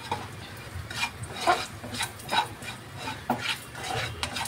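A nylon spoon scraping and stirring in a non-stick kadai, working a stock cube into hot oil with crushed green chillies to melt it; irregular scraping strokes, about two a second.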